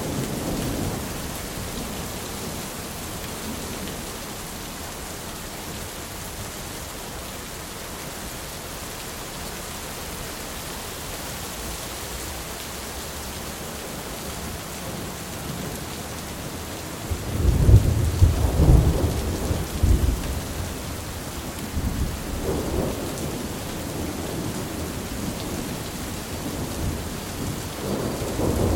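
Thunderstorm: steady rain with thunder. A rumble fades away at the start, then a loud peal of thunder breaks about two thirds of the way through and rumbles on for several seconds, with more rumbling building near the end.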